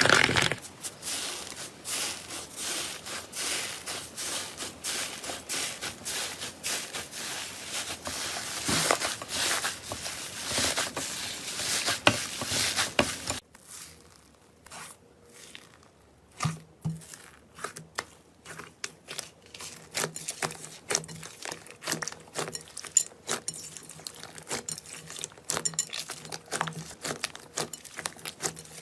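Slime being squeezed and stretched by hand, giving a dense crackling and tearing. About halfway through it changes abruptly to sparser wet pops and clicks over a faint low hum.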